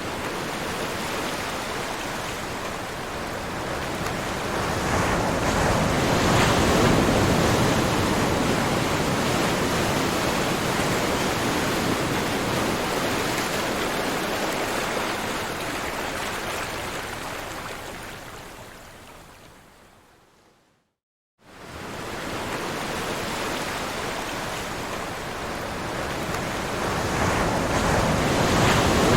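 Ocean surf: a steady rush of breaking waves that swells, slowly dies away to silence about two-thirds of the way through, then starts again a second later and builds once more.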